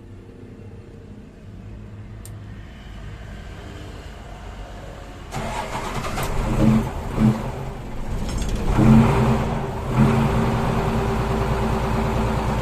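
Mitsubishi Fuso truck's diesel engine catching about five seconds in, on its first start after standing for two weeks. It is revved several times, then settles into a steady fast idle.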